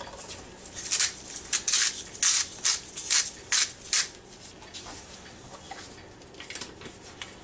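Salt grains coming out of a glass salt container over a bowl of flour: a quick run of short, dry rattling hisses, about three or four a second, for the first four seconds, then only faint small ticks.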